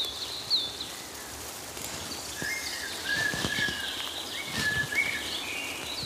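Woodland birds singing: short high hooked chirps repeated over and over, joined in the middle by a lower whistled song, over a steady outdoor hiss. A couple of sharp snaps stand out near the start.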